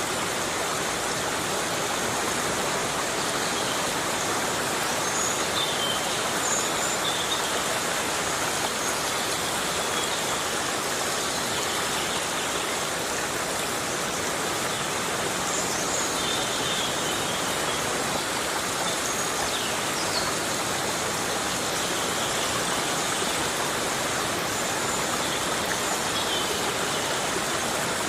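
Heavy rain falling steadily in a rainforest.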